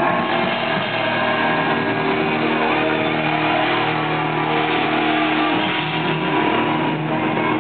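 Live glam-metal band playing loud, with distorted electric guitars holding steady, sustained chords over the rhythm section.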